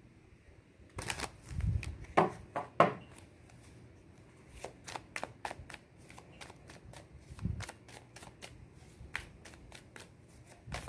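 A deck of tarot cards being shuffled by hand: a loud flurry of card snaps about a second in, then a long run of quick, light clicks, with a couple of dull low thumps.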